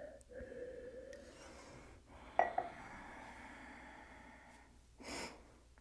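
A person breathing slowly and faintly: a long, soft exhale of more than a second, then a short breath near the end. It is paced breathing with the exhale drawn out longer than the inhale, to bring the body down after exercise. A small click comes just before the long exhale.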